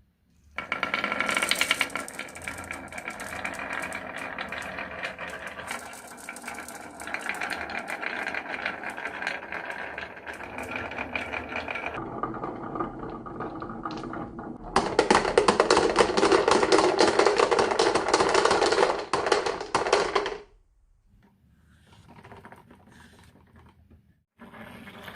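Marbles rolling and clattering along a marble run's tracks, a dense rattle of small clicks that changes texture as they move from section to section. A louder stretch of fast rolling cuts off abruptly about 20 seconds in, followed by quieter rolling.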